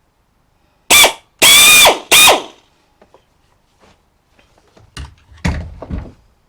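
Electric drill run in three short, loud bursts, its motor whine rising and falling with each pull of the trigger, run in reverse to spin the leftover piece of a pop rivet off the bit held in pliers. A few lighter rattles and knocks follow near the end.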